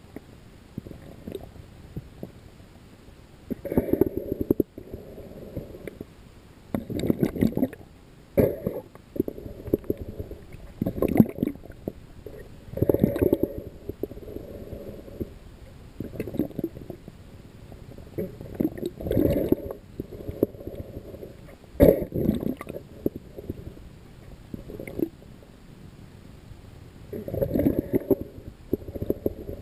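Muffled underwater sloshing and rumbling picked up by a camera held underwater, swelling in irregular surges a second or two long every few seconds.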